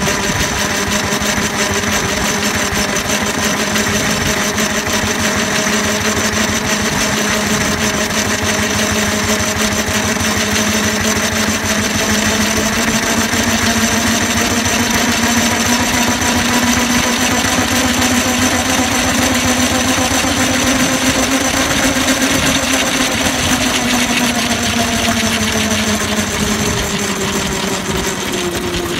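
A 4-inch scale Burrell road locomotive, a live-steam model traction engine, running steadily with a rapid mechanical clatter. Its pitch rises slightly through the middle and drops near the end as it slows.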